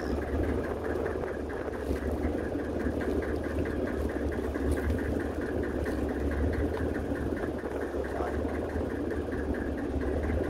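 A fishing boat's engine running steadily: a continuous low hum with a fast, even clatter on top.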